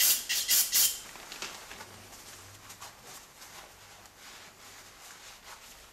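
An aerosol can of brake cleaner sprayed in about five quick short hisses during the first second, flushing sediment out of a motorcycle's front brake master cylinder reservoir. Faint rustling of a paper towel wiping the reservoir follows.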